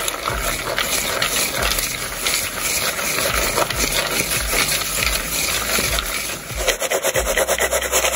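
Oiled, seasoned pumpkin seeds being stirred and tossed in a mixing bowl: a dense, steady rattling and scraping that turns into quicker, rhythmic strokes near the end.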